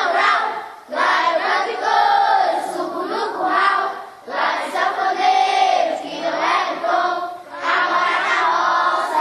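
Group of children singing together, in phrases of about three to four seconds.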